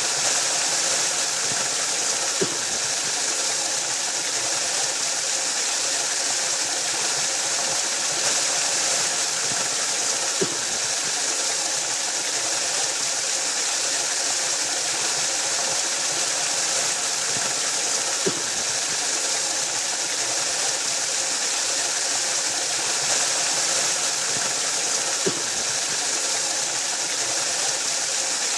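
Waterfall rushing steadily, a constant hiss of falling water with no change in level. A brief click sounds four times, about every seven to eight seconds.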